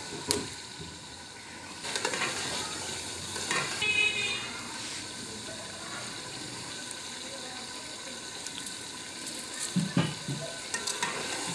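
Pot of meat broth bubbling and sizzling over an open wood fire, with a few sharp metal clinks.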